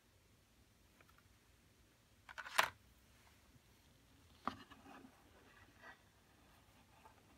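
Clear plastic clamshell case clattering as it is set down on a wooden desk, a quick cluster of clicks about two and a half seconds in. About two seconds later a knock and brief rubbing as gloved hands pick up and turn a small plastic drive enclosure.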